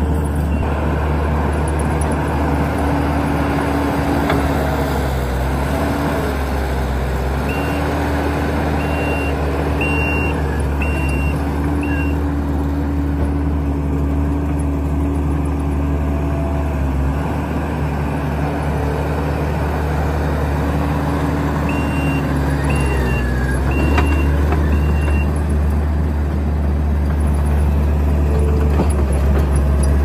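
Kubota SVL90-2 compact track loader's 92 hp Kubota V3800 diesel running at working revs, its note sagging briefly under load a couple of times as it digs and pushes dirt. Its reversing alarm beeps in two runs, about a quarter of the way in and again about three quarters through.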